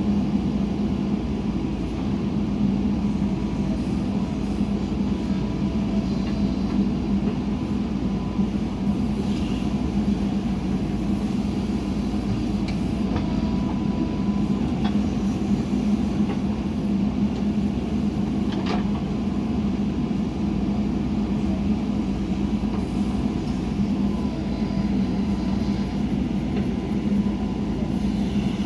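Heavy diesel engine of a backhoe loader running steadily, with a few faint knocks now and then.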